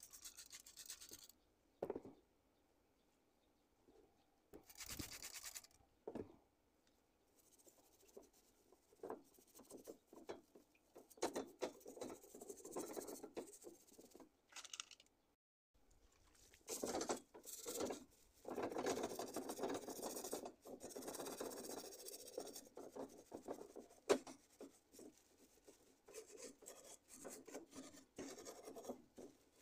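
Metal stove grates being scrubbed by hand with a steel wool scrubber: irregular scratching and rubbing in stretches, with a few short spray-bottle squirts of degreaser near the start.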